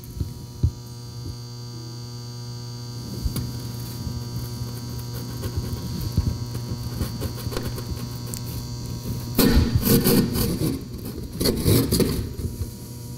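Hand drywall saw rasping through gypsum drywall in short, irregular strokes, loudest in two spells near the end, over a steady electrical hum.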